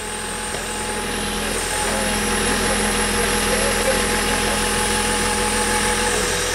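Backhoe loader's diesel engine running steadily at idle.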